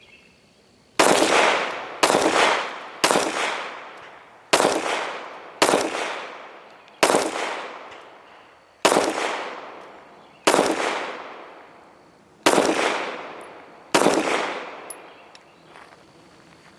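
SCCY DVG-1 9mm pistol fired ten times in slow succession, each shot followed by a trailing echo. The first three come about a second apart, the rest every one and a half to two seconds.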